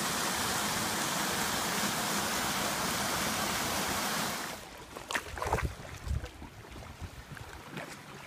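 Small waterfall pouring into a gorge pool: a loud, steady rush of falling water. It cuts off abruptly about four and a half seconds in, leaving a quieter background with a few scattered knocks.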